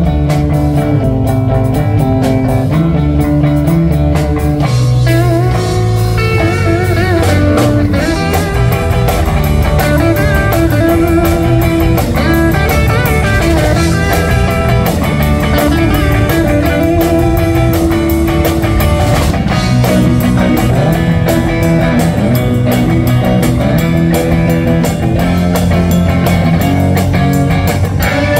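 A live electric band playing an instrumental: electric guitars over electric bass and a drum kit, with a wavering lead guitar line and no singing.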